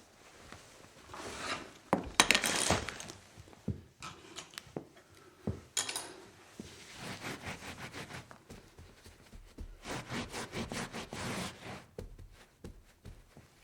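Cleaning up a spill: bouts of rubbing and scrubbing strokes, quick and repeated, loudest about two seconds in, with a few sharp knocks and clinks of objects being handled.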